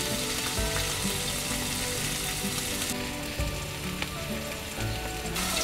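Sirloin steak sizzling steadily as it fries.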